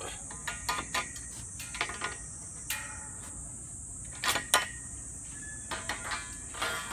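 Galvanized steel chain link fence fittings clicking and knocking against each other as a rail end cup and flat brace band are worked onto a top rail: scattered light metallic clicks, the loudest two close together about four and a half seconds in, over a steady high hiss.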